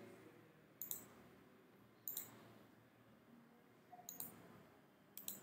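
A handful of faint, sharp computer clicks, spaced a second or more apart, the last few in close pairs.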